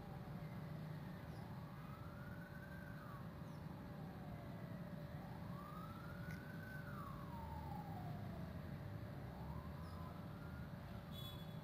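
Faint siren wailing, rising and falling slowly about once every four seconds, over a low background rumble.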